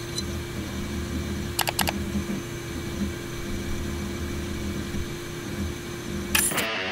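Old desktop PC running: a steady fan hum with uneven hard-drive whirring and clicking, and a mouse double-click about one and a half seconds in as the program is opened. A short loud burst comes near the end.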